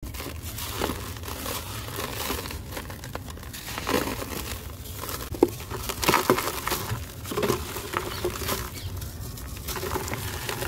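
A soft, gritty cast block crumbling in the hands: irregular crunches and grinding as it is squeezed and broken apart, with crumbs and grit pattering down into a plastic tray. About five and a half seconds in there is one sharp crack.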